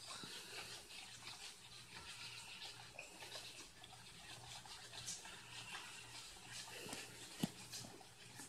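Faint wet squishing and scraping of spoons stirring a thick mix of flour, lotion, hair gel and body wash in disposable plastic bowls, with one sharper click near the end. A low steady hum runs underneath.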